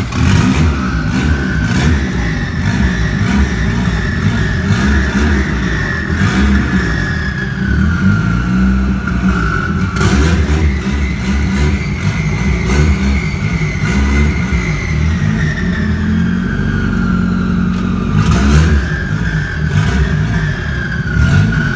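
Turbocharged Volkswagen AP four-cylinder engine in a Passat running and being revved, with a turbo whistle that slowly rises and falls with the revs.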